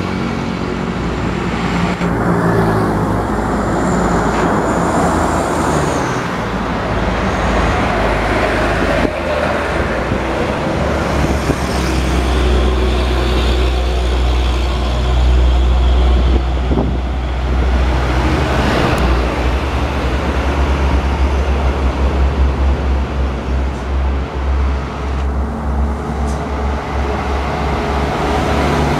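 Road traffic dominated by heavy diesel trucks passing close by, their engines a deep rumble that grows strong partway through and beats in pulses near the end, over the noise of tyres and of cars and motorcycles.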